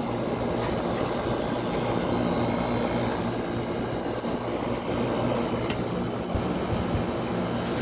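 5000 BTU Gibson window air conditioner running, its LG compressor humming steadily under the fan's rush of air, sounding okay. A faint click about six seconds in.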